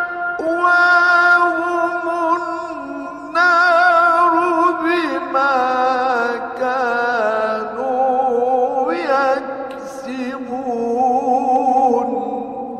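A male Quran reciter's solo voice in Egyptian mujawwad style, drawing out long melismatic phrases with wavering ornaments on held notes. The pitch steps down over the course, with short breaks between phrases.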